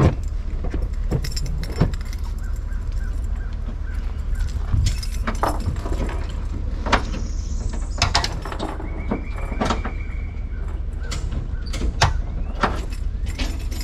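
Low steady rumble of a vehicle engine running, with scattered knocks and clanks of gear being handled, and a brief high steady tone around the middle.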